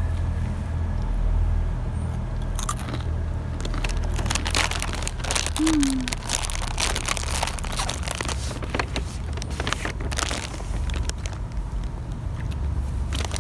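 Chewing and crunching on crispy rolled chili corn chips (Turbos Flamas), in irregular crackly bites, over a steady low rumble.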